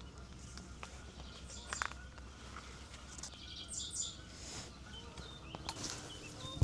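Small birds chirping outdoors, the short high chirps coming thick in the last second and a half, over a steady low outdoor rumble with a few brief rustles.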